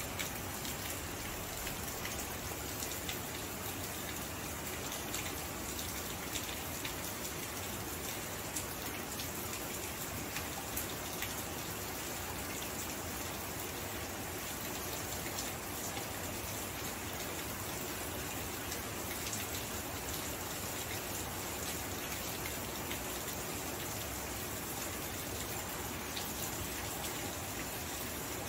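Steady rain falling: an even hiss with many small, scattered drop ticks.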